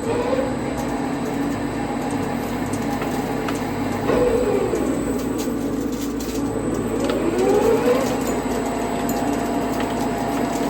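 Fryer ET-50 CNC flat bed lathe with its spindle running in the third gear range, a steady mechanical hum and rattle. A whining tone slides down and back up in pitch a few times over it.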